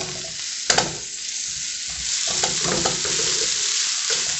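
Diced onion, red pepper and broccoli sautéing with a steady sizzle in a frying pan, stirred with a silicone spatula that scrapes and taps against the pan, one sharp tap coming just under a second in.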